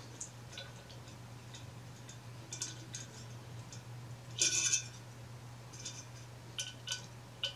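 Light metallic clicks and a short clatter about four and a half seconds in, from a small hand tool and fingers working on a blower's sheet-metal squirrel-cage fan wheel as it is tightened down on the motor shaft. A steady low hum runs underneath.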